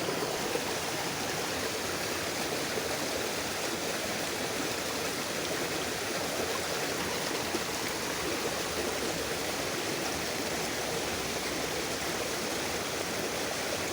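Water flowing steadily in a stream, an even rushing sound with no breaks.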